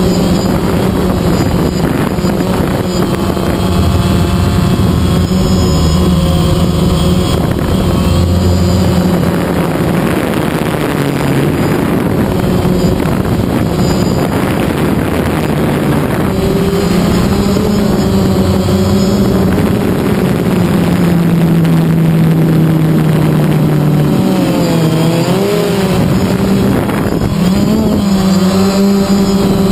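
DJI Phantom quadcopter's electric motors and propellers buzzing loudly, heard close up from the camera slung beneath it. A steady pitched drone that dips lower about two-thirds of the way through and wavers near the end as the motor speeds change in flight.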